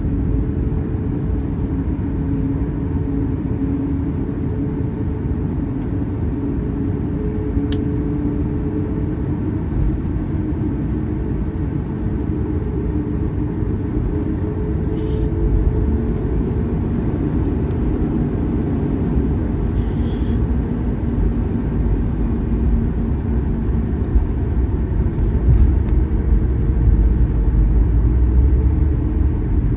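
Cabin noise beside a Boeing 737 MAX 8's CFM LEAP-1B turbofan at taxi power: a steady low rumble with a hum of engine tones as the airliner taxis. It grows a little louder near the end.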